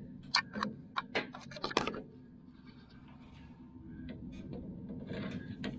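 About six sharp clicks and taps in the first two seconds, then quiet handling noise over a faint low hum.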